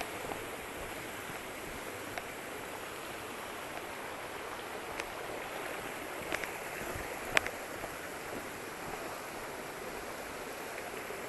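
Steady rushing of a waterfall and its stream, with a few light clicks and one sharp click about seven seconds in.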